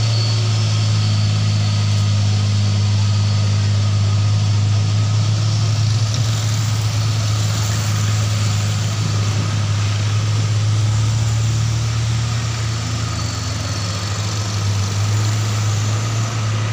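A vehicle engine's steady low drone, even in pitch throughout, under the noise of traffic on the hill, with a car passing close near the end.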